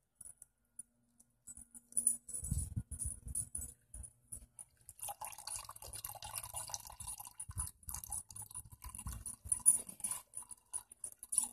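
Used engine oil draining from the drain into a metal coffee can: a faint, irregular pattering, with scattered clicks and low knocks as the can is handled, denser from about five seconds in.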